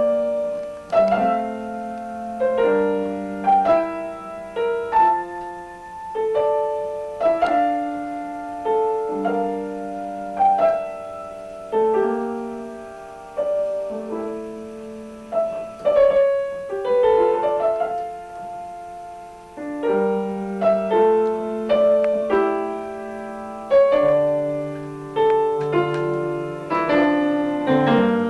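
Piano playing a slow piece, with chords and a melody struck about once a second, each note fading away.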